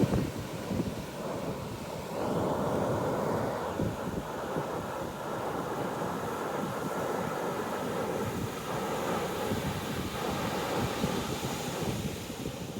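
Heavy ocean surf breaking and washing on the beach, with strong wind buffeting the microphone in a low, gusting rumble.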